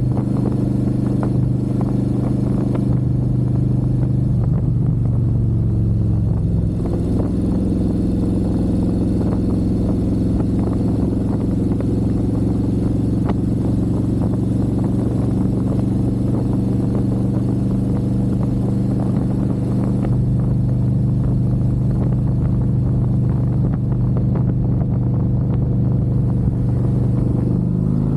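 Harley-Davidson Road Glide V-twin with a Screaming Eagle Stage 2 511 cam, running steadily at a low speed through a Thumper Moto stainless 2-into-1 exhaust. Its pitch wavers and dips briefly about five to seven seconds in, then settles.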